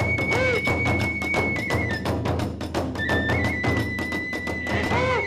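Kagura hayashi ensemble playing: a bamboo transverse flute holds long high notes that step between pitches, over fast, even strikes of drum and small hand cymbals.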